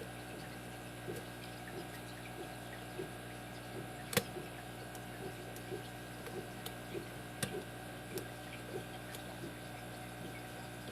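Small, irregular clicks and taps of a lock pick working the pins inside a Kasp brass shrouded padlock, with two sharper clicks about four and seven seconds in, over a steady low hum.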